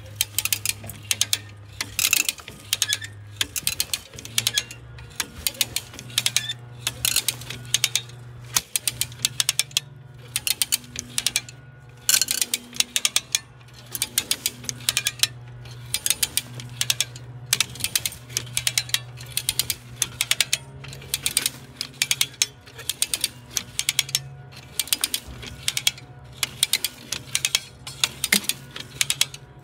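Hand-operated ratchet cable puller (come-along) being pumped, its pawl clicking over the ratchet teeth in quick runs about once a second as the steel cable winds onto the drum. A steady low hum runs underneath.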